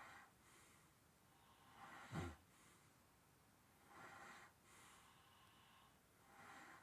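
A sleeping man snoring: faint, regular breaths about every two seconds, with one short, low snore about two seconds in.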